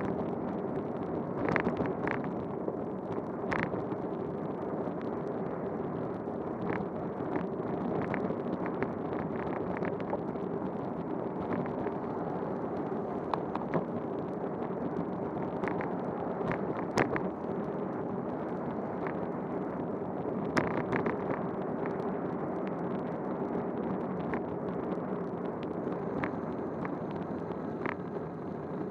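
Bicycle riding on a wet road in the rain: steady tyre and road noise with wind on the microphone and a steady hum, broken by scattered sharp ticks and knocks, the loudest about two-thirds of the way through.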